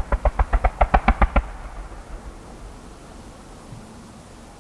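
Distant fireworks bursting in a rapid string of sharp bangs, about seven a second, for the first second and a half, then a fading rumble.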